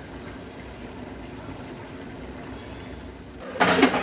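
Fish curry boiling in a large pot, a steady soft bubbling. A much louder rushing noise comes in near the end.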